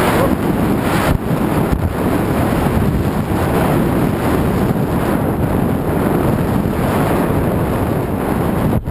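Steady rush of wind over a helmet-camera microphone while a snowboard runs fast down a powder slope, the board sliding through the snow beneath, with a brief drop near the end.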